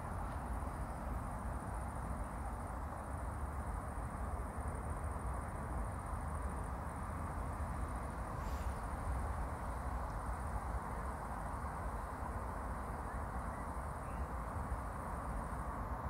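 Steady outdoor background noise: an even low rumble and hiss, with a faint, high, unbroken buzz above it, and a brief high click about eight and a half seconds in.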